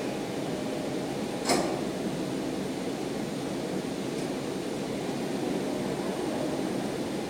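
Steady hum of a commuter train's equipment and fans with the train standing at the platform, broken by one sharp clack about a second and a half in.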